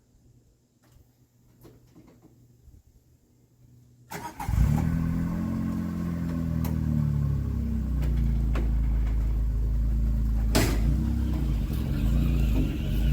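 A Gator utility vehicle's engine starts about four seconds in after a quiet stretch, catches and then runs steadily. There is a single sharp clunk about ten seconds in.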